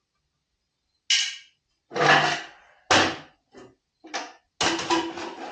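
A series of clunks and rattles from metal tools and parts being handled, about six separate knocks, the last and longest with a brief ringing clatter.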